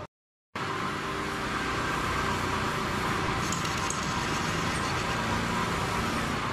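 Metal lathe running steadily, its cutting tool taking a facing cut across the end of a spinning steel workpiece held in a four-jaw chuck. The sound drops out completely for about half a second at the start.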